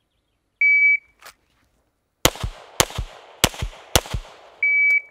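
A shot timer beeps to start, then a pistol fires four shots in two quick pairs, two on each target. A second timer beep near the end marks the end of the four-second par time.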